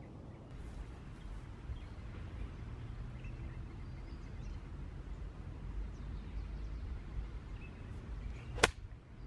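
Golf iron striking a ball once: a single sharp click near the end, over a steady low wind rumble on the microphone.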